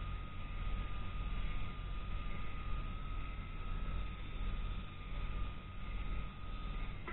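Fishing boat's engine running with a steady low rumble, joined by a steady high whine that stops near the end.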